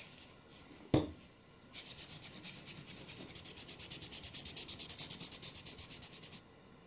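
A cotton cloth rubbing oil into a wooden toy-car body in quick, even back-and-forth strokes, about ten a second. The rubbing starts about two seconds in and stops near the end. A single sharp knock comes about a second in.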